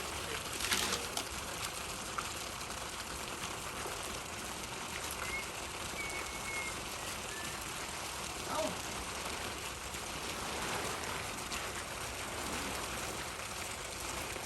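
Steady, rain-like hiss of running or spraying water.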